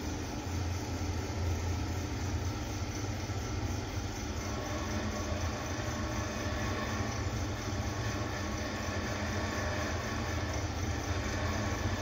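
Otis slow traction goods lift travelling between floors, heard from inside the car: a steady low hum of the car in motion.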